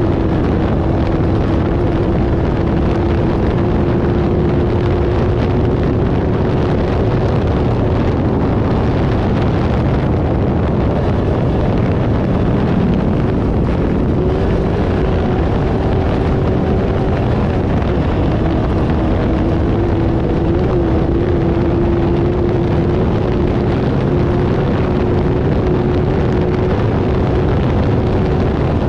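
Off-road desert race car engine running hard at a nearly steady speed, its pitch dipping and rising only slightly, under constant wind and terrain noise.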